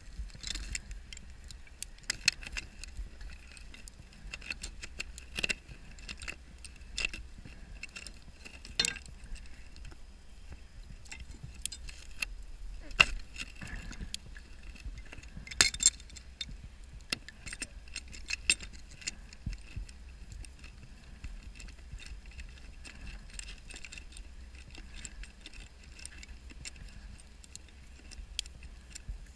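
Underwater inside a steel shipwreck: irregular sharp clicks and metallic clinks from a scuba diver's gear knocking on the hull, the loudest about 13 and 16 seconds in, over a steady low rumble.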